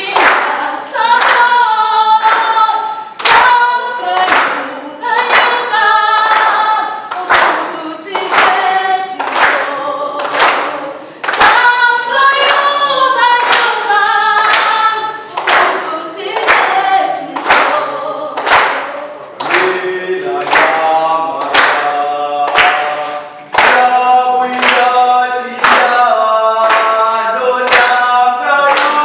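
A group of young voices singing a song in Russian together, kept in time by regular hand claps about one to two a second.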